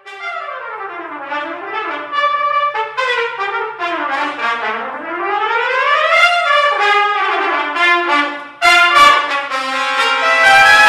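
Solo trumpet playing quick running passages that sweep down, up and back down. Near the end a loud, sustained brassy sound takes over.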